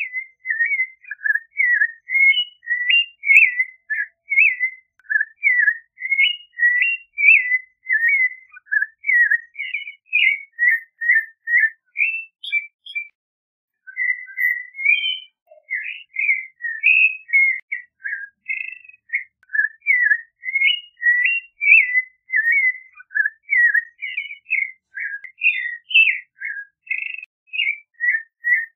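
Clay-colored thrush singing: a long run of short whistled phrases, several a second, with a brief pause about halfway through.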